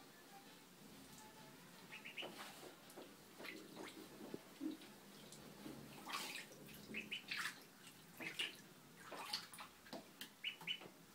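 Four-week-old ducklings splashing and paddling in bathtub water, with scattered splashes and a few short, high peeps.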